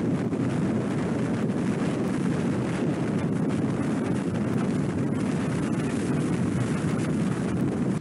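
Strong wind from a nearby tornado rushing steadily over the microphone, a loud, even noise without a break.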